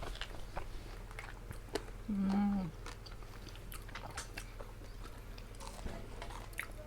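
Close-up chewing and biting into crispy fried chicken, with scattered small crunches and mouth clicks. A short closed-mouth 'mm' hum about two seconds in is the loudest sound, over a faint steady low hum.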